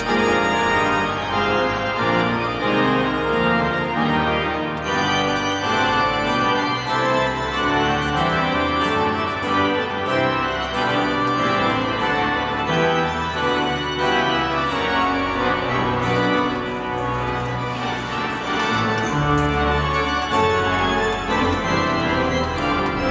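Organ playing full, sustained chords that change every second or so, with a rich spread of overtones.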